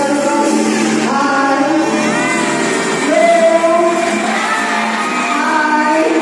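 A man singing into a microphone over a backing track, amplified through loudspeakers in a large open hall, with long held notes.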